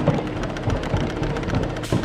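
A 30-ton crane's engine running steadily with a low hum, with a few knocks and thuds, the sharpest one near the end.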